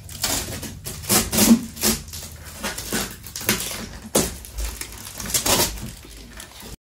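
Packaging being torn open and handled during an unboxing: a string of irregular crackles and rips.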